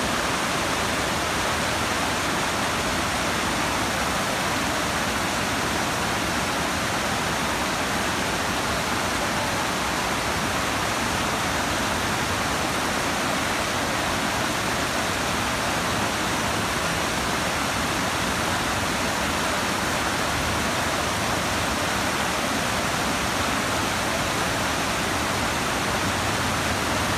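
Steady rush of a shallow, rocky mountain stream flowing over stones.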